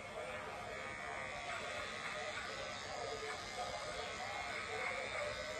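Electric dog-grooming clippers running with a steady buzz, trimming the hair from between a dog's paw pads.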